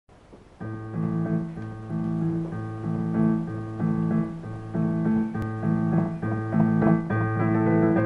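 Solo piano playing a repeating pattern of chords over a low bass note that is struck again about once a second, with a middle note held throughout. It begins about half a second in.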